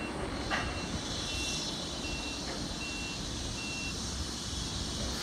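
Electronic warning beeps, a short high single tone about every three-quarters of a second, stopping about four seconds in, over the steady low rumble of a slowly moving rail vehicle in a train depot. A single sharp clank about half a second in.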